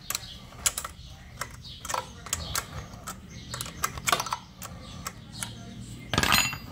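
Irregular light metallic clicks and taps from hand tools working the carburetor mounting nut and washer on a Yamaha 25 HP outboard motor. A louder rattle comes near the end.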